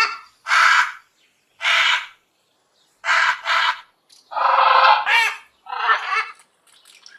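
Parrot squawking: a run of about eight harsh, raspy calls with short gaps between them. Two come close together about three seconds in, and a longer call just after the middle ends in a sliding whistle.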